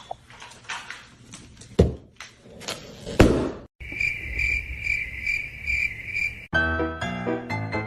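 Several sharp knocks and thuds. After a sudden cut, a high insect-like chirping that pulses about two to three times a second. A second cut brings in piano music.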